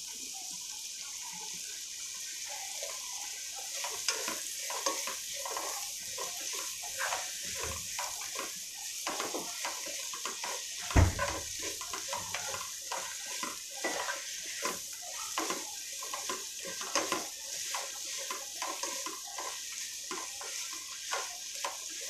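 Onions, green chilies and ginger garlic paste frying in oil in a non-stick pot, with a steady sizzle. From about four seconds in, a spatula scrapes and stirs through them in many short strokes, with one louder thump against the pot near the middle.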